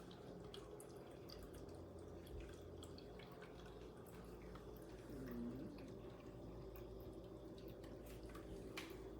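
Near silence: faint room tone with a low steady hum and a few scattered faint ticks.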